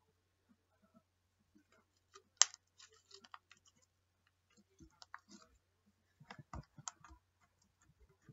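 Slime being squished and worked by hand: irregular sticky clicks and small pops, in two clusters, the sharpest about two and a half seconds in. A faint steady low hum lies underneath.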